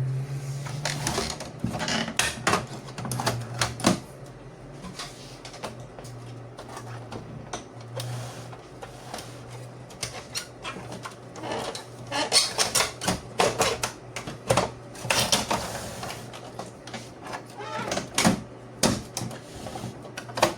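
Epson L3150 inkjet printer mechanism clattering and clicking in irregular bursts of rapid mechanical rattles, over a steady low hum.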